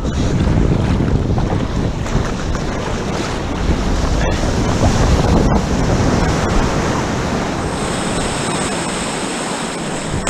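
Ocean surf and churning whitewater rushing right around a camera riding low on a surfboard, with wind noise on the microphone.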